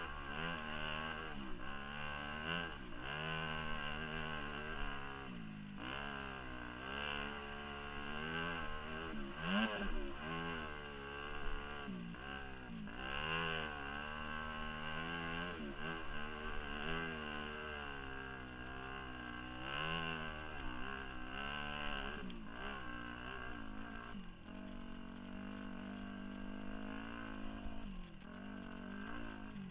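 2002 Yamaha YZ250F's four-stroke single-cylinder engine carrying the dirt bike along a trail, its pitch rising and falling over and over as the throttle is worked and the gears are changed. It holds a steadier, lower note for a few seconds near the end.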